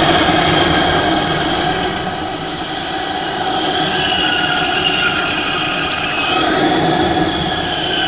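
Horror creature sound effect: one long, harsh screech with several high wavering pitches over a rough, grating lower layer. It dips slightly in loudness around two to three seconds in, then swells again.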